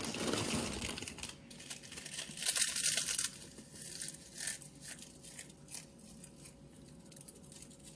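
Chips crushed by hand, crackling and crunching. Loudest in the first second and again around two and a half to three seconds in, then thinning to scattered small crunches.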